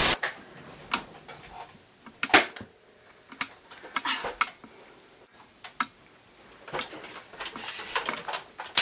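A short burst of static hiss, then irregular sharp clicks and knocks, the loudest about two and a half seconds in.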